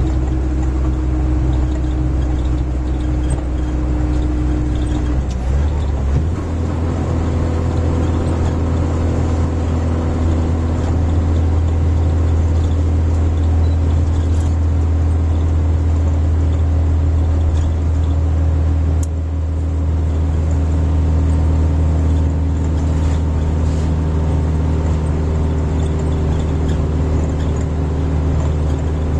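Van engine and tyre noise heard from inside the cabin while driving, a steady low drone. The engine note shifts about six seconds in.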